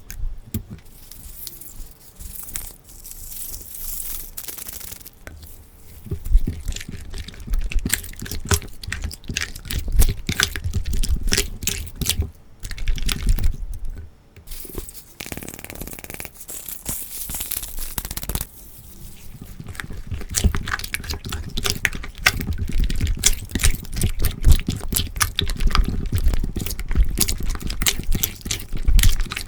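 Slime being squeezed, stretched and poked by hand, making dense, irregular sticky clicks and crackling pops.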